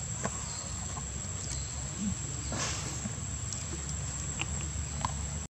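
Outdoor background sound: a steady low rumble with scattered faint clicks and a brief rustle midway, cutting out abruptly to silence near the end.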